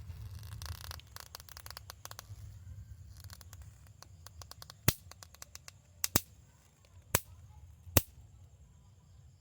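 Electric mosquito zapper crackling and popping as insects are electrocuted on its grid. Faint rapid crackles come first, then four loud sharp pops about a second apart, one of them a quick double snap.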